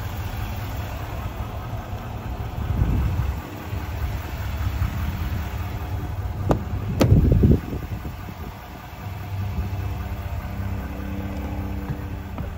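Chevrolet Silverado 2500 HD's 6.6-litre Duramax V8 turbo-diesel idling with a steady low rumble. About seven seconds in, the door latch clicks open and the door is handled with a brief louder thump.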